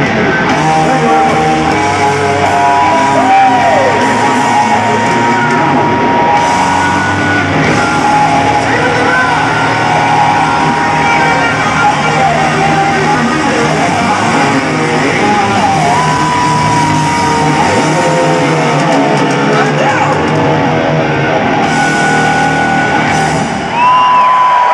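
Live rock band playing loud in an arena, led by electric guitar.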